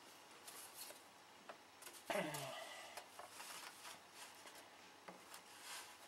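Faint rubbing and rustling of a thin balsa sheet being handled against a balsa model-aircraft wing frame, with a few light ticks and a brief low murmur about two seconds in.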